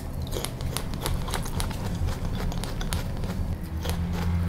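Close-up crunching of crisp wax apple being bitten and chewed: a quick, uneven run of sharp crunches and wet mouth clicks.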